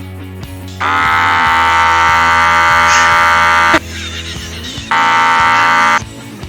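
Two loud, steady air horn blasts with abrupt starts and stops, one of about three seconds and a shorter one of about a second, over rock music with guitar.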